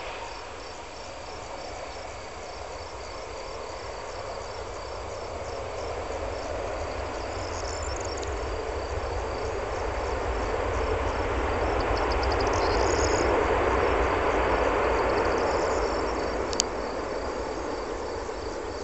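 Jet engine noise of a landing Airbus A320 swells over about ten seconds to a peak and then fades as the airliner rolls out after touchdown, typical of reverse thrust. Crickets chirp steadily throughout.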